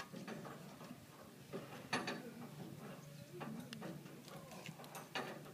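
Scattered light clicks and knocks of hands handling wiring and fittings on a combine harvester's steel frame beside the gear-shift lever, the loudest about two seconds in and again near the end.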